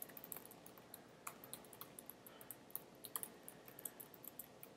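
Faint typing on a computer keyboard: quick, irregular keystrokes, several a second.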